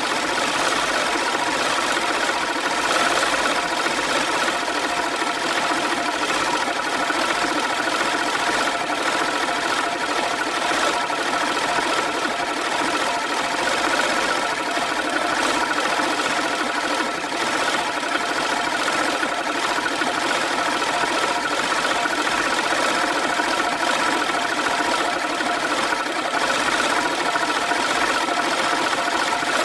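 Manual push reel lawn mower being pushed steadily, its spinning blade reel making an even whirring rattle.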